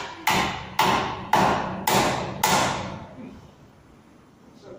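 Five hammer blows, about two a second, each ringing out briefly before the next. The hammering stops about halfway through.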